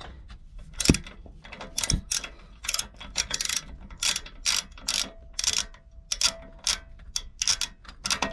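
Ratchet wrench with a 12 mm socket clicking in repeated strokes, about three clicks a second, as it works the exhaust-pipe mounting nuts loose. Two sharper knocks come about one and two seconds in.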